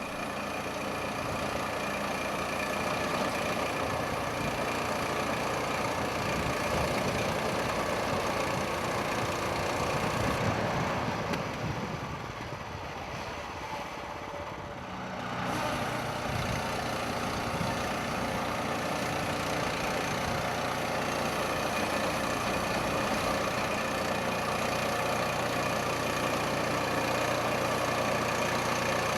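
Portable band sawmill running under power, its engine and band blade going steadily as the sawhead cuts through a log. About halfway through, the sound drops quieter and duller for a few seconds, then picks back up.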